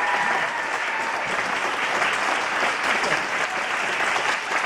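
Audience applause: many people clapping steadily as a dance performance ends.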